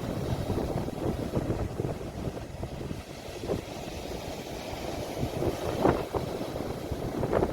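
Sea waves with wind buffeting a phone microphone, making a steady low rumble, with a few brief sharper surges.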